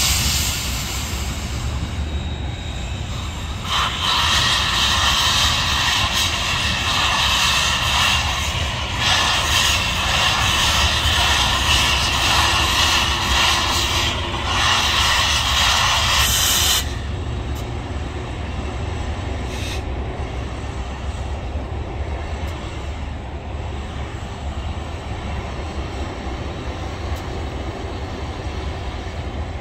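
Union Pacific Big Boy 4014, a 4-8-8-4 articulated steam locomotive, passing with a low rumble throughout. From about four seconds in, its whistle sounds in long blasts for roughly thirteen seconds, with two brief breaks, and then cuts off suddenly, leaving only the rumble of the passing train.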